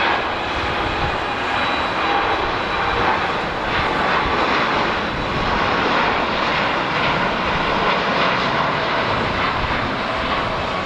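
Boeing 787-8's two Rolls-Royce Trent 1000 turbofans at takeoff thrust, a steady loud roar as the jet lifts off and climbs away.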